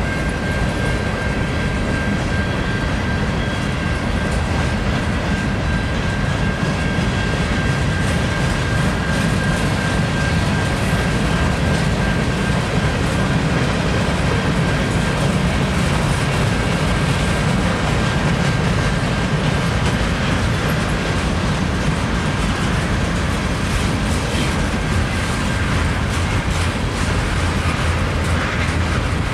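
Freight train cars rolling past: a steady rumble of steel wheels on rail, with clickety-clack as wheels cross rail joints. A thin, steady high squeal rides over it and fades out about two-thirds of the way through.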